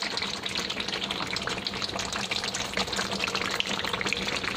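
Thick rendang sauce bubbling and popping in a pot on the stove as it is cooked down: a steady dense crackle of small pops.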